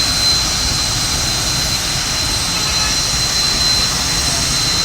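Ruptured natural gas pipe with high-pressure gas escaping and burning in a steady jet-like roar. A thin, steady high whistle runs through it.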